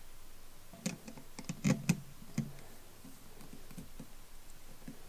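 A few light metallic clicks and taps as the jaws of a wire stripper/crimper tool work the nut of a small toggle switch on a drill press's metal head, loosening it.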